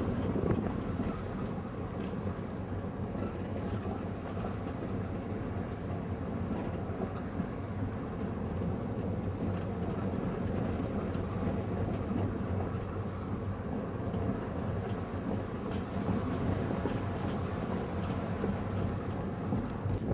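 Steady engine and road noise of a vehicle driving along, heard from on board, low and even throughout.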